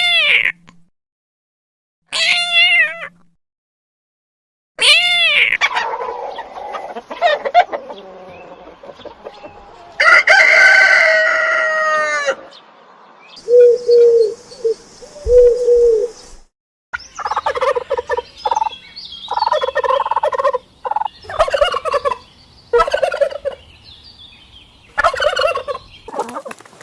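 Roosters crowing in a run of separate calls, several of them long and arching, rising then falling in pitch, followed in the second half by short, rapid, broken calls from poultry.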